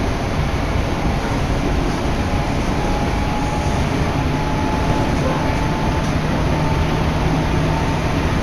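Passenger train running at speed, heard from inside the carriage: a steady rumble and rail noise with a faint steady whine.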